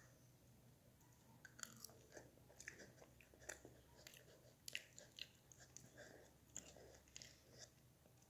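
Faint close-up chewing by a child eating from a spoon: irregular small wet smacks and clicks, starting about a second and a half in.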